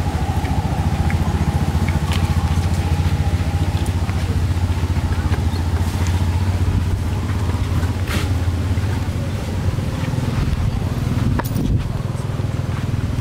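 A motor vehicle's engine running steadily, a low rumble throughout, with a few faint clicks.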